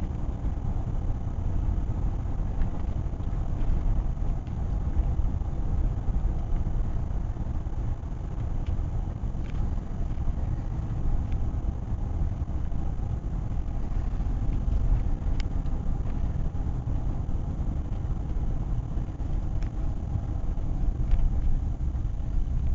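Steady low rumble of a car driving on a damp road, heard from inside the cabin: engine and tyre noise, with a few faint clicks.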